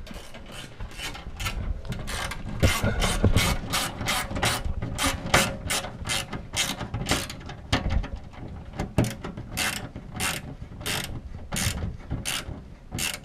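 Hand ratchet wrench working a bolt, its pawl clicking in quick, even bursts about three times a second.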